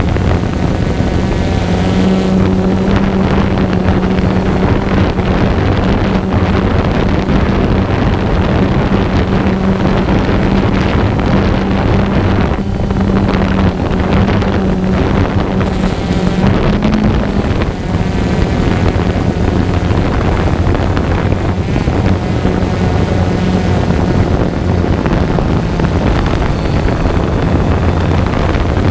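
Quadcopter drone's electric motors and propellers humming steadily, heard from the camera mounted on the drone, with wind noise over it. The pitch rises briefly a little past halfway, then settles lower.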